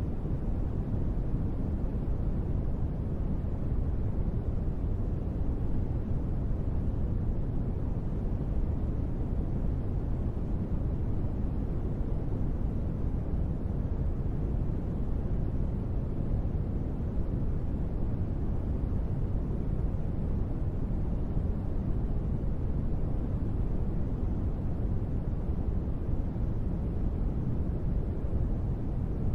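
Steady sleep noise, a deep, muffled hiss weighted heavily to the bass with little high treble, unchanging in level.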